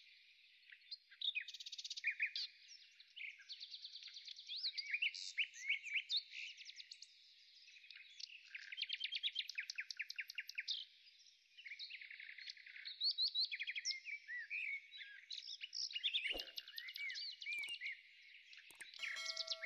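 Many small birds chirping and trilling together, a dense chorus of overlapping short calls and quick up-and-down whistles. Near the end comes a sharp click, then a short ringing chime.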